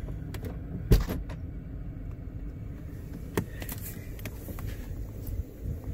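Steady low rumble of a Mercedes-Benz car idling with its air conditioning on low, heard from inside the cabin. A sharp knock sounds about a second in, and a lighter click a couple of seconds later.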